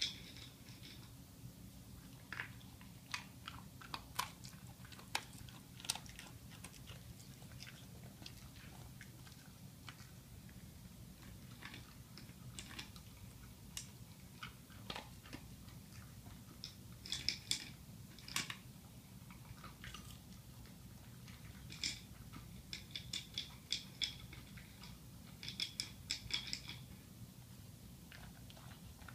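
Scottish terrier crunching dry kibble from a bowl: irregular crisp crunches and clicks, scattered at first and coming in quick clusters in the second half.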